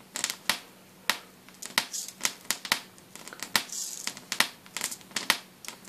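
High-voltage arc of a ZVS-driven Jacob's ladder (traveling arc) crackling and hissing, with irregular sharp snaps, while the supply delivers about 11 amps, close to 400 watts. A faint steady hum runs underneath.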